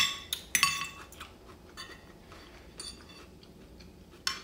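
Metal spoon and fork clinking against ceramic plates while eating: a sharp clink right at the start and another just over half a second later, then a few fainter taps and one more clink near the end.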